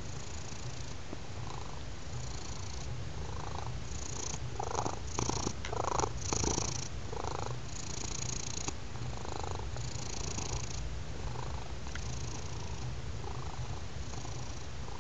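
Domestic cat purring steadily at close range, its breaths audible in and out in a slow rhythm about once a second, louder for a few seconds in the middle.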